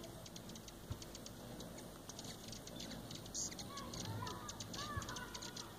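Hummingbirds at sugar-water feeders giving quick, high chip notes, several a second. From about four seconds in, a bird's repeated arching chirps join them.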